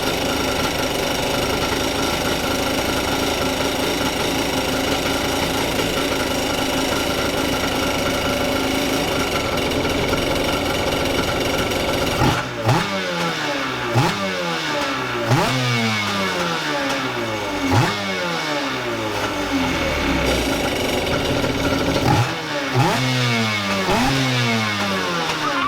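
Kawasaki 750 two-stroke twin in an X-2 jet ski, freshly swapped in, running steadily. About halfway through it starts taking a string of quick throttle blips, each revving up and dropping back, roughly one a second. The blips pause briefly and then start again near the end.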